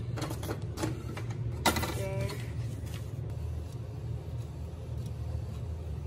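Inkjet printer printing a page on B5 loose-leaf paper. It makes a run of clicks and knocks from the paper feed, with a sharp click just under two seconds in, then a brief whine from the mechanism over a steady low hum.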